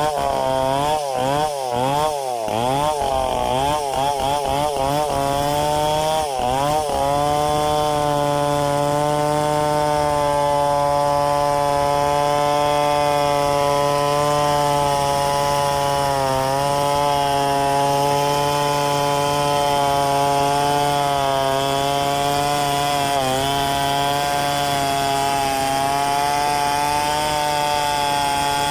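Stihl 720 two-stroke chainsaw blipped up and down quickly, about twice a second, for the first several seconds, then held at full throttle in a steady cut through gmelina wood, its pitch sagging briefly twice under load.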